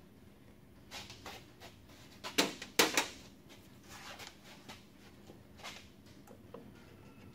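Metal hand tools clinking and clanking against each other and the drum brake parts, with a few sharp loud clanks about two and a half to three seconds in. Lighter clicks follow as pliers work at a brake shoe hold-down spring.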